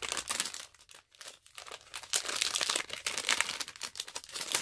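Shiny plastic blind-bag pouch being torn open and crinkled by hand: a dense, irregular run of crackles that grows busier in the second half.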